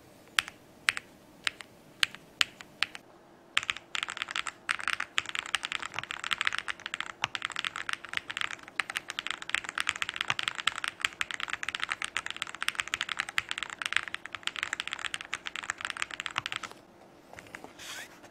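Meletrix Zoom75 Tiga mechanical keyboard keystrokes: a handful of single key presses spaced a few tenths of a second apart, then fast, continuous two-handed typing for about thirteen seconds. Near the end, after a short pause, there are a few soft knocks and rustles as the keyboard is lifted.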